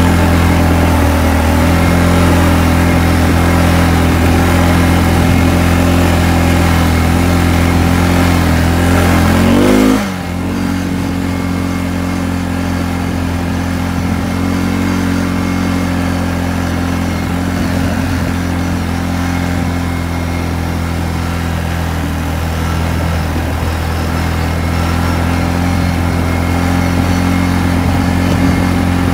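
ATV (four-wheeler) engine running under way. The revs climb briefly about ten seconds in, then drop, and the engine runs on steadily and a little quieter.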